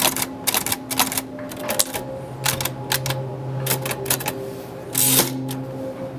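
Typewriter keys striking in an irregular run of sharp clacks, with a longer rasping burst about five seconds in, over a soft steady musical drone.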